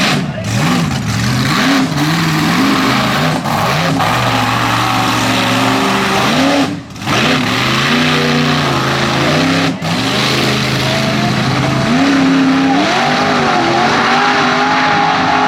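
Mega truck engines revving hard, the pitch climbing and falling again and again under heavy load, over a constant rush of noise; the sound breaks off briefly twice in the middle.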